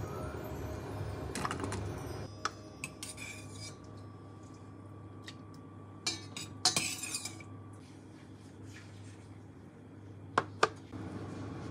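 Kitchenware clinking: a ladle knocking against a stainless steel saucepan and soup bowls being set down on a wooden tray, a few scattered clinks and knocks, the loudest near the middle and near the end, over a low steady hum.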